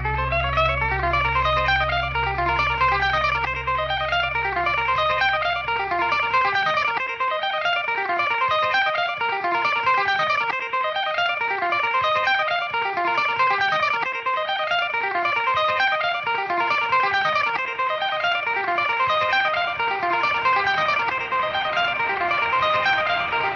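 Instrumental rock backing track: guitar playing a fast, repeating figure of quick single notes. A held low bass note underneath drops out about seven seconds in.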